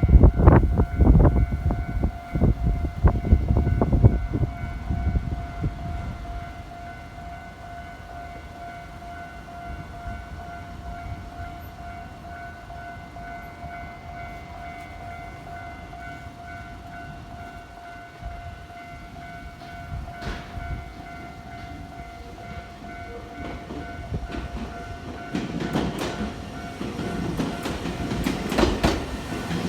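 A train rolls over a level crossing with heavy wheel clatter over the rail joints for the first few seconds. The crossing's warning bell rings steadily the whole time, and a second train's wheel clatter builds up near the end.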